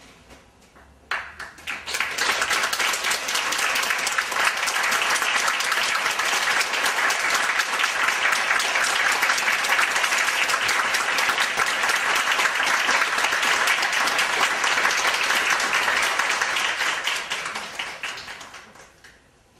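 Audience applauding: many hands clapping, rising quickly about a second in, holding steady, then dying away near the end.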